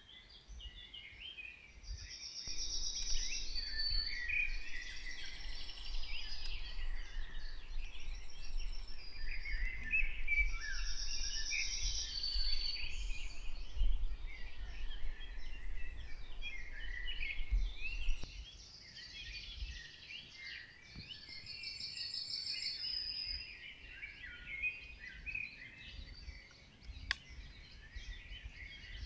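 Several woodland birds chirping and calling at once, with repeated short trills among them. A low rumble runs underneath and drops away about eighteen seconds in.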